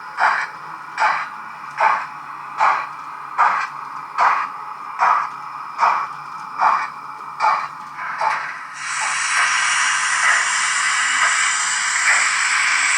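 Sound decoder of a Roco BR 01 H0 model steam locomotive playing slow, even steam chuffs, a little more than one a second. About two-thirds of the way through it changes to a steady hiss of escaping steam.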